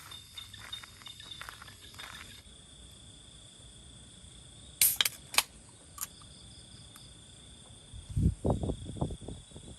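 Insects buzzing steadily in a high, even drone, with a few sharp clicks about five seconds in and a run of low thuds near the end.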